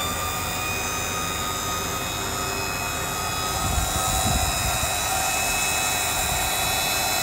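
Liftmoore 3200REE electric truck crane running under power, its electric drive motor giving a steady whine that gets slightly louder about four seconds in.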